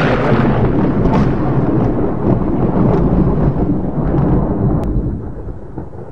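Rolling thunder, a deep rumble that slowly fades away toward the end.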